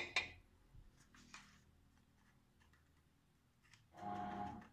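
A metal knife clicks sharply twice against the glass jars at the start, then ticks faintly a few times as a knife-tip of salicylic acid is dropped onto each jar of cherries. Near the end there is a short droning sound, about half a second long.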